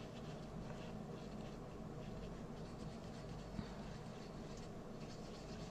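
Faint scratching of a glitter brush pen's tip dabbed and stroked over paper, with one light tap about three and a half seconds in.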